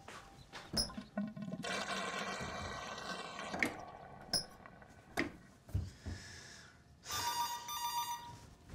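Water rushing and draining in household plumbing, like a toilet flushing, with several sharp knocks and clatters; near the end a buzzing, pitched tone comes in.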